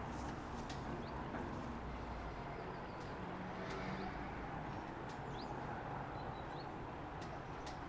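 Low, quiet rumble of the Braunwald funicular car rolling slowly into its valley station, easing off after about two seconds. Short high chirps of birds come here and there.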